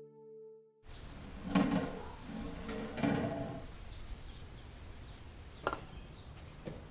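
Background music ends about a second in. Then quiet indoor room sound follows, with two faint short swells and a few small clicks or knocks, the clearest near the end.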